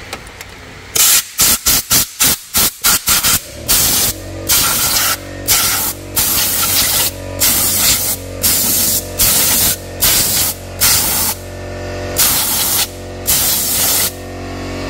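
Compressed-air blow gun blasting debris out of an engine valley. A rapid string of short blasts about a second in is followed by longer blasts of about half a second each, one after another.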